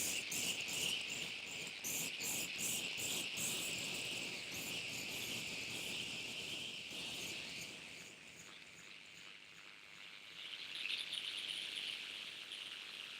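DIY Triwave Pico noise drone synthesizer playing a high, insect-like drone with fast pulsing in the first few seconds. It dips in level about two-thirds of the way through, then swells back.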